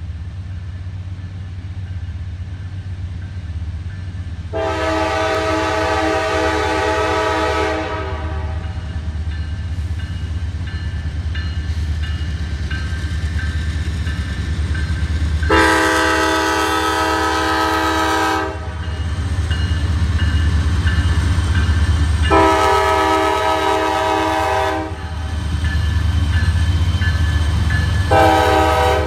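Norfolk Southern diesel freight locomotives approaching and passing, the engines' low rumble growing louder, while the air horn blows a chord in four blasts. The first two blasts are long, the third a little shorter, and the fourth starts near the end, matching the long-long-short-long signal sounded for a road crossing.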